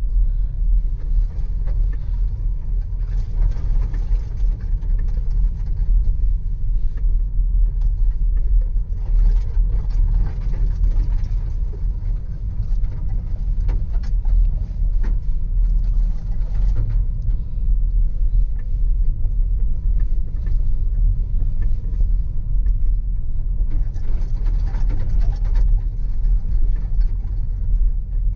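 Inside the cabin of a Skoda Karoq driving over a bumpy field track: a steady low rumble from the tyres and suspension, with creaking and small knocks from the interior trim that swell several times as the car rocks over the bumps.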